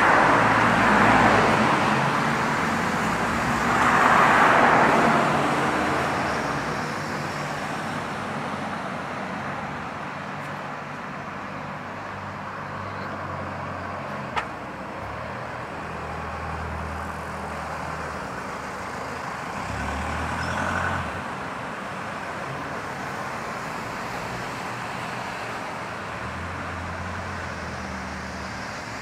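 Urban road traffic: a car passes close by at the start and another about four seconds in, then a steady low hum of traffic with a smaller pass-by later on. A single sharp click sounds about halfway through.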